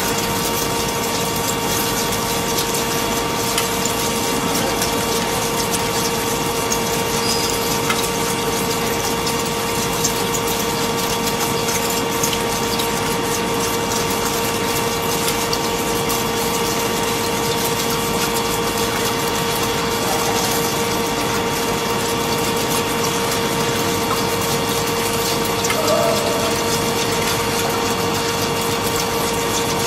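CNC machining centre drilling through a metal plate under flood coolant: the rush of the coolant spray and cutting noise, with a steady whine from the spindle and cutting.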